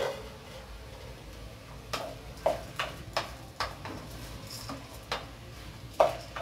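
A spoon stirring and scraping in a metal pan of rice being sautéed with diced vegetables before the water goes in: a run of irregular knocks and scrapes against the pan starting about two seconds in, the sharpest one near the end.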